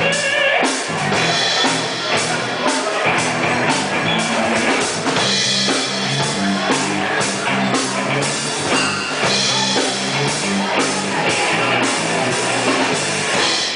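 Live rock band playing: a Tama drum kit keeping a steady beat under electric bass and electric guitar.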